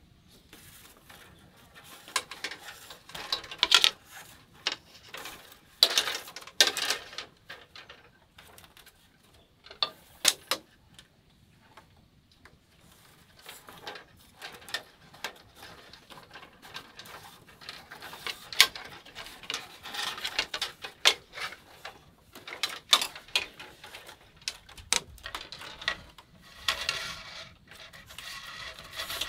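Thin bamboo strips clicking, scraping and rustling against one another as they are threaded through a woven bamboo basket, in irregular bursts with a couple of short lulls.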